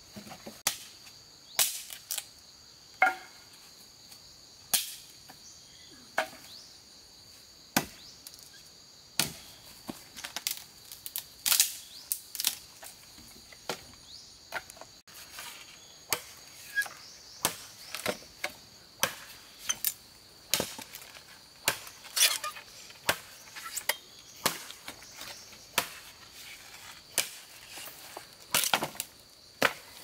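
A blade chopping bamboo: sharp chops at an irregular pace, roughly one a second and quicker in the second half, over a steady high insect trill.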